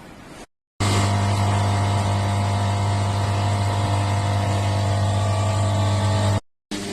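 Haier front-loading washing machine running its spin cycle with a steady, loud hum. It runs normally with the newly replaced door lock. Two brief gaps of silence break the hum, one near the start and one near the end.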